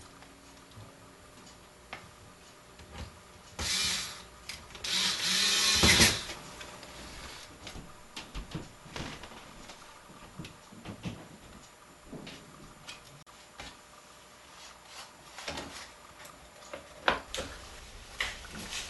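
Handling of the Roland TD-27 drum module's plastic housing and circuit board during reassembly: scattered clicks and knocks of parts being fitted together. A loud rushing, scraping noise about four to six seconds in is the loudest sound.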